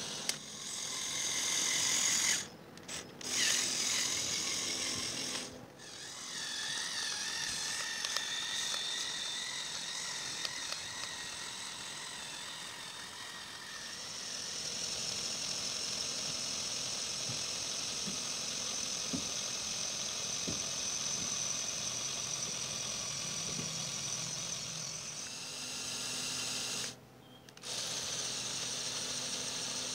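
Small electric motors and plastic gears of a motorised Lego Technic tractor model whining steadily, with brief dropouts a few times.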